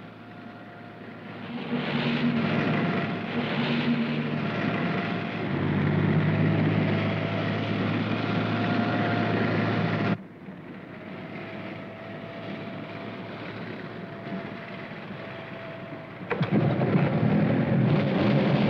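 Cartoon sound effect of a convoy of truck engines running with a steady drone, growing louder about a second and a half in and dropping suddenly to a quieter rumble about ten seconds in. About sixteen seconds in, a louder engine sound of a pack of motorcycles starts suddenly.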